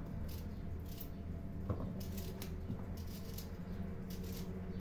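Small kitchen knife slicing pieces off a cucumber held in the hand: a string of short, crisp cuts, with a small knock about a second and a half in. A steady low hum runs underneath.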